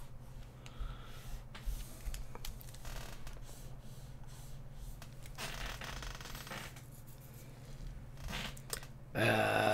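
Stylus scratching and tapping on a drawing tablet in short strokes, over a steady low electrical hum. Near the end comes a louder pitched hum lasting about a second.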